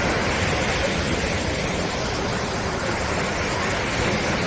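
Sea surf washing onto a sandy beach: a steady rush of waves.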